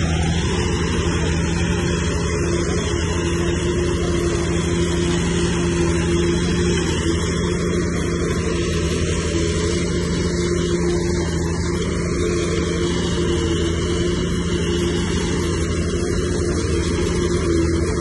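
Bulldozer's diesel engine running steadily at an even pitch.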